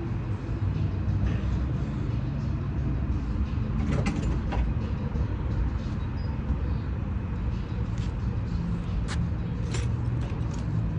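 The swapped-in 6.0-litre V8 of a 1986 Oldsmobile Cutlass running steadily with a low, even rumble. A few sharp clicks sound over it, one about four seconds in and several more near the end.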